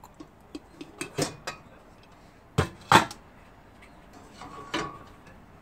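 Cookware clattering: a glass pot lid and a ladle knocking against a stainless steel stockpot, with a few light clinks, two loud knocks between two and a half and three seconds in, and a metal clank that rings briefly near the end.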